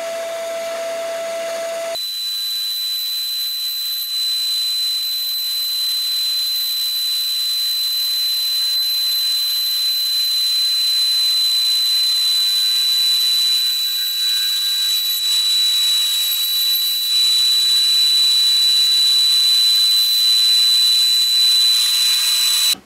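Axminster HBS250N bandsaw running and cutting a curved shape out of a wooden board: a steady hiss of blade and sawing, with a constant high whine that sets in about two seconds in.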